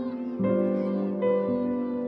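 Soft background music: held notes that change every half second or so.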